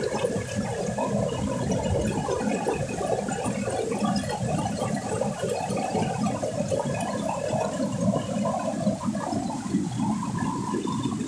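River water rushing and splashing down a small rocky cascade between boulders, a steady churning rush.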